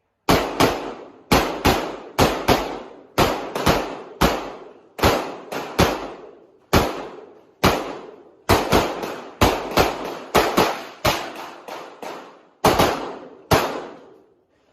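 A rapid string of about thirty handgun shots, mostly fired in quick pairs with short pauses between groups. Each shot is a sharp crack with a brief echoing ring, as a shooter works through a practical-shooting stage.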